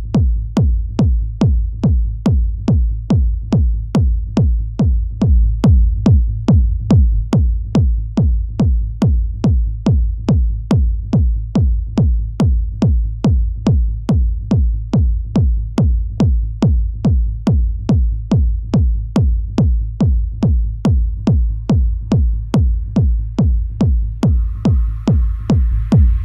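Techno kick drum from a Maschine+ groovebox playing a steady four-on-the-floor beat, about two deep thumps a second with a sharp click on each. A hissy high noise layer fades in near the end.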